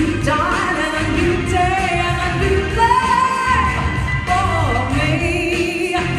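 A woman singing into a handheld microphone over musical accompaniment, holding long notes with vibrato.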